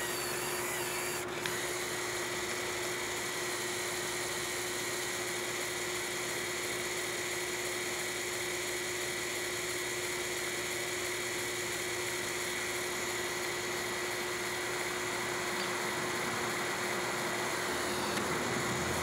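Small electric Lego Power Functions motor and its plastic gear train whining steadily as they drive the crane of a Lego Technic 8258 Crane Truck, settling into an even pitch about a second in. The batteries powering it were running down.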